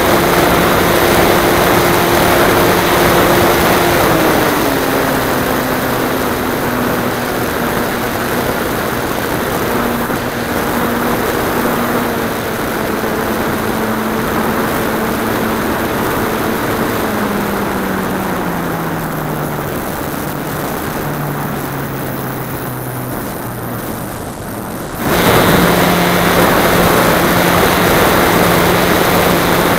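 Onboard sound of the Super Fly model aeroplane's engine and propeller, with rushing air. The engine note drops about four seconds in and sinks further in steps as the throttle is eased back. About 25 seconds in it jumps abruptly back to full power.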